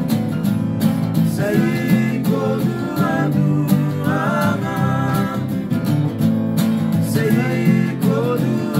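Acoustic guitar strummed along with men singing together, an informal sing-along with one guitar and voices.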